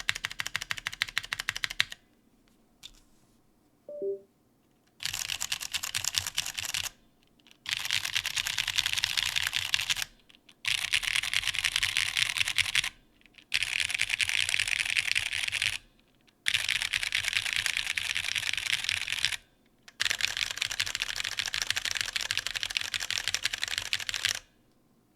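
Fast typing on a custom mechanical keyboard with unlubed stock vintage Cherry MX Brown tactile switches and GMK keycaps on an FR4 half plate. The typing comes in bursts of two to four seconds with short pauses between them.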